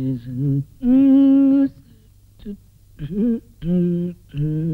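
A man humming a tune to himself in long held notes. A higher, louder note is held for about a second near the start, then comes a short pause, then a rising slide into more held lower notes.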